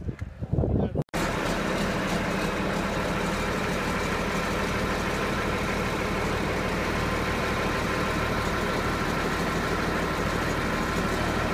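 John Deere 4455 tractor's six-cylinder turbo diesel engine idling steadily, starting about a second in.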